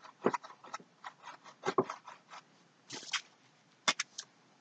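Paintbrush stroking and dabbing paint on a stretched canvas: a scatter of short, soft, scratchy brush strokes at irregular intervals.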